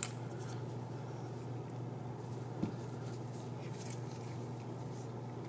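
Faint clicks and taps of carbon-fibre drone frame parts being handled and fitted together by hand, with one slightly sharper tick about two and a half seconds in, over a steady low hum.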